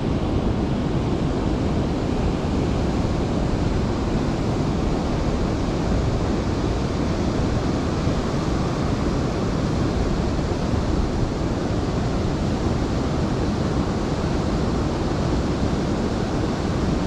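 Steady rushing of river water spilling over a low dam, mixed with wind buffeting the microphone.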